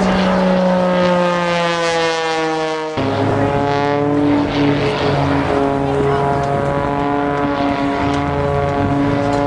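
Aerobatic biplane's piston engine and propeller droning, the pitch sliding steadily down for the first three seconds. It breaks off abruptly and then goes on at a steady pitch.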